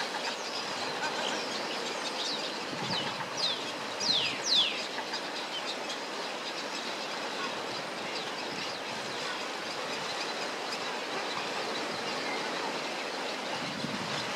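Small birds chirping: short, high, falling calls, densest and loudest about four seconds in, over a steady background rush.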